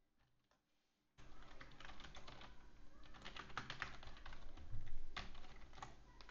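Computer keyboard keys clicking in quick, irregular runs as a couple of words are typed, starting about a second in.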